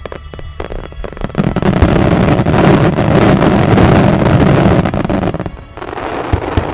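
Wide starmine fireworks. A few separate bangs give way, about a second in, to a loud, dense barrage of rapid bursts and crackling lasting about four seconds. It eases to a lighter crackle near the end.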